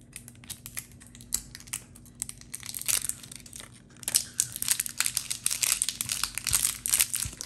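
Plastic shrink-wrap seal on a whiskey bottle's neck being picked at and peeled with the fingers: a run of crinkling and crackling, thicker and louder from about halfway in.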